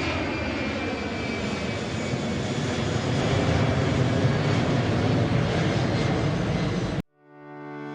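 Aircraft engine noise as an aeroplane flies past: a steady rushing roar with a faint whine that falls in pitch early on, cut off suddenly about seven seconds in. Soft music fades in just after.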